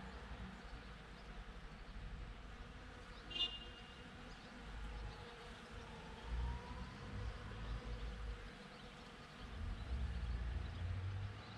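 Bees buzzing steadily as they forage among cherry blossoms, with a low uneven rumble underneath. A single short, high chirp cuts in about three and a half seconds in.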